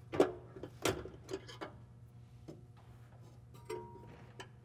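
Sharp metallic clicks and taps of a 12 mm wrench working a bolt loose on a pickup truck's frame, about five clicks in the first two and a half seconds, over a faint steady low hum.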